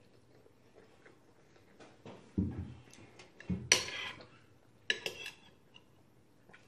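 A utensil clinking and scraping on a plate in a few short clatters, loudest just before the middle.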